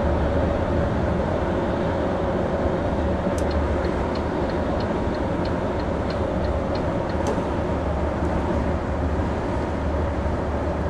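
Steady engine and road noise inside the cab of a moving diesel Class A motorhome: a constant drone over a low rumble. In the middle a run of light, regular ticks, about three a second, lasts a few seconds.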